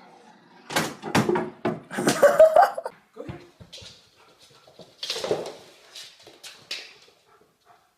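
A dog vocalising in a run of short, loud sounds over the first three seconds, one of them with a rising whine. It is followed by quieter knocks and clicks.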